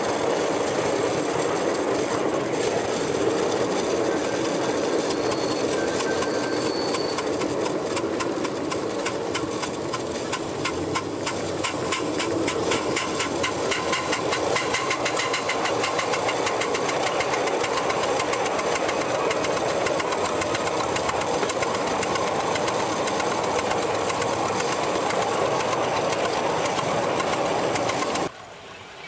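Scratch-built live-steam model of a Stirling single locomotive running, heard from the footplate: a steady rush of exhaust and running noise with quick, even beats that stand out through the middle stretch. It cuts off sharply near the end.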